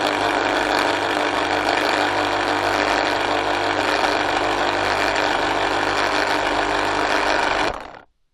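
Electric fruit juice extractor's motor running at a steady speed, then switched off about eight seconds in and dying away quickly.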